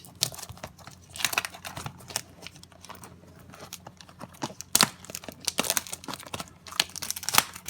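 Plastic packaging of a trading-card box or pack being handled and torn open: irregular crinkling and crackling with short tearing rips.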